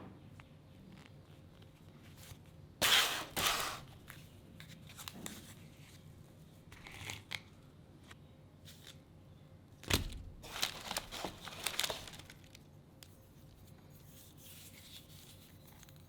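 Packaging being handled and torn open: short bursts of tearing and crinkling, with a sharp thump about ten seconds in followed by more rustling.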